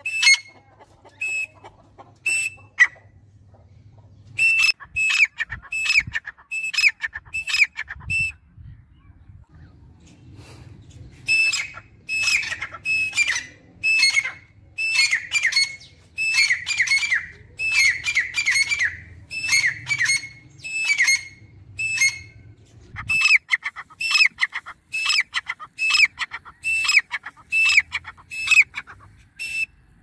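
Grey francolins calling: loud, sharp, high-pitched notes repeated several times a second in long runs, broken by two short pauses in the first third.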